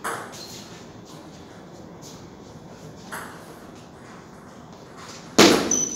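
Lull between table tennis points: faint hall background with indistinct voices, and no ball being played. About five seconds in, a sudden loud burst of noise cuts in.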